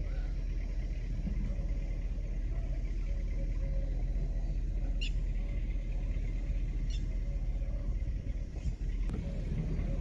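Steady low rumble, with two faint, short high chirps about five and seven seconds in, likely from birds.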